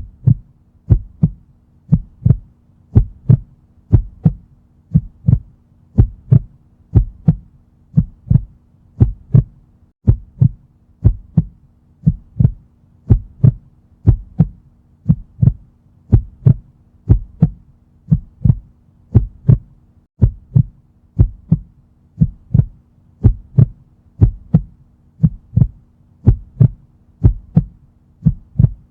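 Heartbeat sound effect: a steady lub-dub heartbeat at about one beat a second, each beat a quick double thump, over a faint steady low hum.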